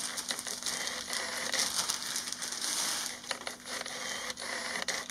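Clear plastic parts bag crinkling and rustling as it is handled and opened, with many small clicks and crackles.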